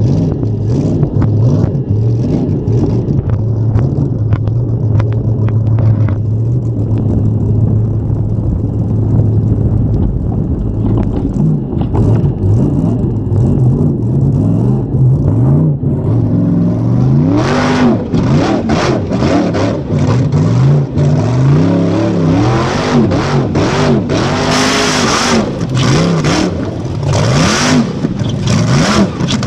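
Formula Offroad unlimited-class buggy's engine heard from inside the cockpit. It runs steadily at first, then revs hard up and down over and over from about halfway through. During the revving come loud rushing bursts as mud and spray fly against the car.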